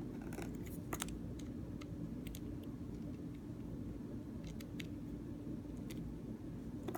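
Faint, scattered small clicks and taps from handling a plastic car key fob and its tiny screw, over a steady low hum.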